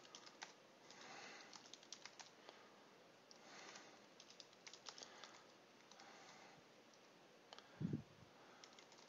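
Faint computer keyboard typing, keys tapped in short runs as text is entered into form fields. A brief low thump sounds near the end.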